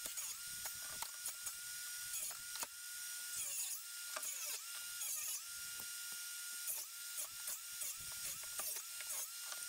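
A small electric motor whirring in repeated short and long spurts: its high whine rises at each start, holds and falls at each stop, with clicks and rattles between the runs.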